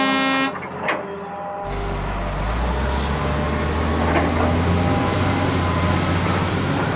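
A short horn toot, then a truck engine running with a steady low rumble from about a second and a half in.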